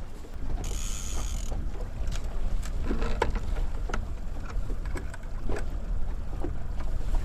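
Boat motor running steadily at trolling speed, with wind on the microphone. A short hiss comes about a second in, and there are scattered light clicks.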